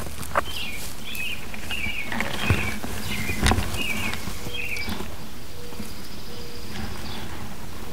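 Bird chirping: a quick run of short high chirps in the first half, over steady outdoor background noise, with a couple of soft knocks.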